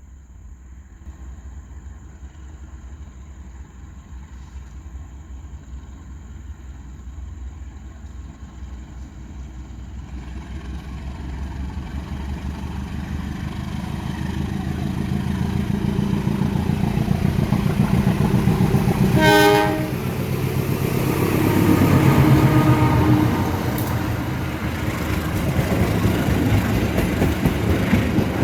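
Locomotive-hauled train approaching and passing, a low engine rumble building steadily louder, with a short horn blast about two-thirds of the way through. The locomotive is working hard enough to throw fire and smoke from its exhaust.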